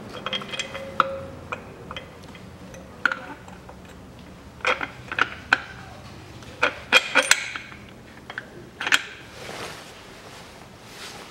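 Scattered metallic clinks and knocks, in several short clusters, as a new rear engine mount on its metal bracket is fitted by hand against the underside of the car and its bolts are set in place.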